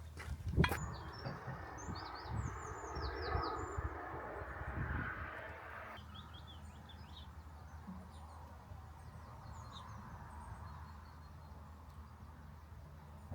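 Small birds chirping in quick short notes over a steady low rumble, with a single sharp knock about half a second in. A rushing noise runs beneath the birds and stops abruptly about six seconds in.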